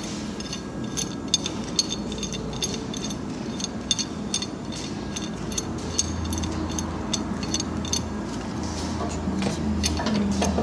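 Repeated sharp metallic clinks and taps of steel tools, several a second, over a steady low machine hum that grows stronger about six seconds in.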